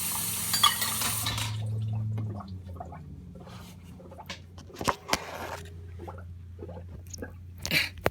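Kitchen tap running, then turned off about a second and a half in, followed by scattered clinks and knocks of dishes and cutlery.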